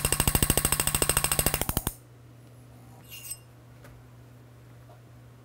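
Jeweller's hammer handpiece striking a gold ring's bezel in a rapid, evenly spaced train of blows, pushing the metal over the stone with the ring on a steel mandrel. The hammering stops abruptly about two seconds in, leaving a low steady hum and a brief light clink.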